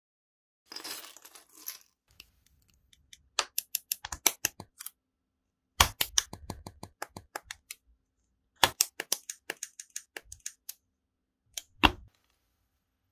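Small plastic building bricks clicking and snapping together as they are handled and pressed into place, in several runs of quick sharp clicks. A brief rustle comes about a second in.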